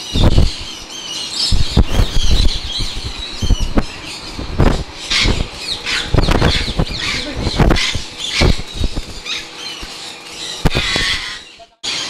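African grey parrots squawking and flapping their wings, with many short thumps.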